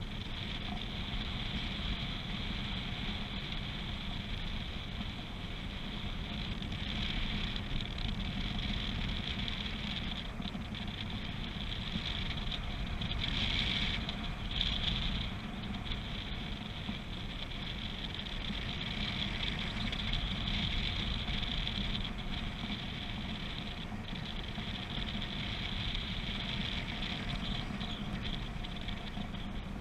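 Wind rushing and buffeting over the camera microphone during paraglider flight: a steady low rumble with a hiss over it, swelling briefly about halfway through.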